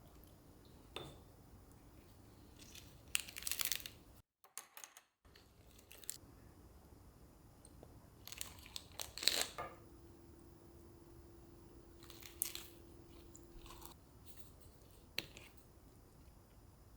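Kitchen handling sounds: several short crunching, rustling bursts and a few light knocks. A steady low hum sounds for a few seconds in the second half.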